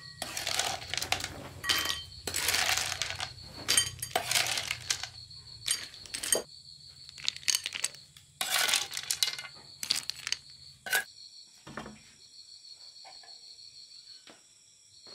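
Clattering and clinking of small hard objects being handled in a container, in irregular clusters of short strokes that thin out and stop about three-quarters of the way in.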